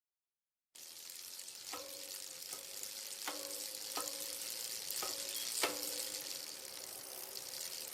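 Chrome vanadium combination wrenches being handled: about six light metal clinks, each with a brief ring, over a steady hiss.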